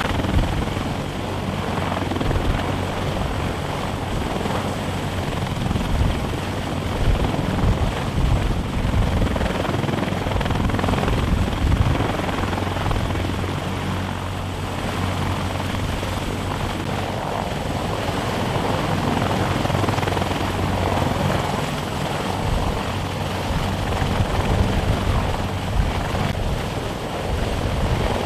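CH-53E Super Stallion heavy-lift helicopter hovering low overhead, its rotor and turbine engines running steadily with a low hum.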